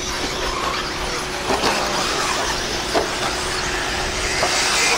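Electric 1/8-scale off-road buggies racing on a dirt track, their motors whining up and down in pitch as they accelerate and brake, with a couple of short knocks.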